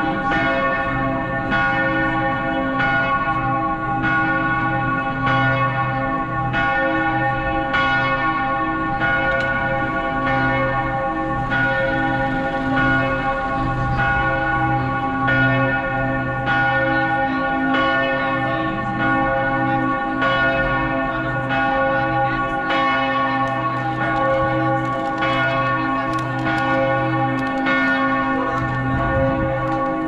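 The church bells of Michaelerkirche pealing: several bells ring at once, struck again and again with overlapping ringing tones and a deep hum beneath.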